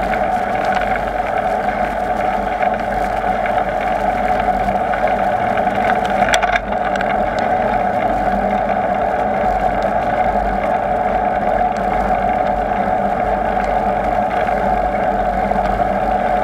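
Steady riding noise from a bicycle rolling along a paved street: a constant hum mixed with wind and tyre noise, and a short rattle about six seconds in.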